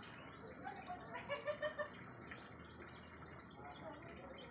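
A Bangkok gamecock rooster clucking: a quick run of four or five short, low clucks about a second in, over a steady background hiss.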